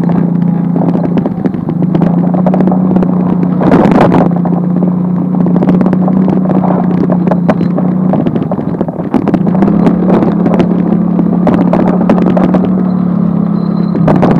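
Small motorcycle's engine running steadily while riding a rutted sandy dirt track, with frequent knocks and rattles over the bumps and a loud thump about four seconds in. The engine eases off briefly a little past halfway, then picks up again at a slightly higher pitch.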